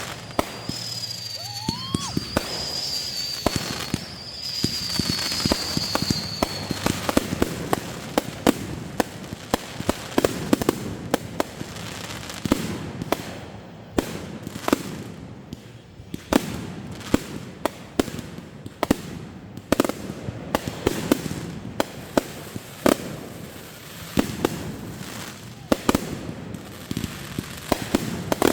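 Fireworks going off in rapid succession, many sharp bangs and crackles. A high warbling whistle runs through the first several seconds, with a short rising whistle about two seconds in.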